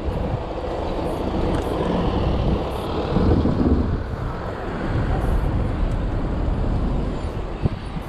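Wind rushing and buffeting over an action camera's microphone on a moving bicycle, over the hum of street traffic. A single short knock near the end.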